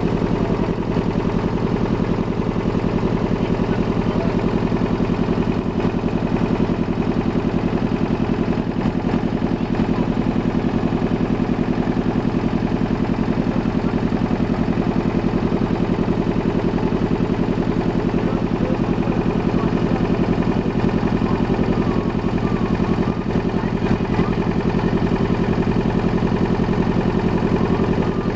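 Wooden motor ferry boat's engine running steadily, with a fast, even throb that holds one pace throughout.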